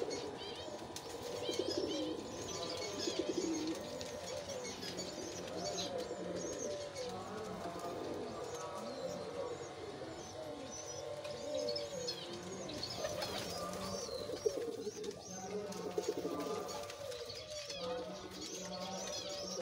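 Fantail pigeons cooing, many overlapping coos from the displaying birds, with high bird chirping over them.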